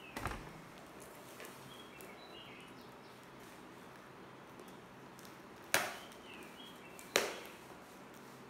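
A tape-wrapped parcel being handled and opened: a soft knock just after the start as it is set down on the tile floor, then two sharp snaps, one about five and a half seconds in and one about a second and a half later, as the packing tape is cut and picked at. Faint short chirps in the background.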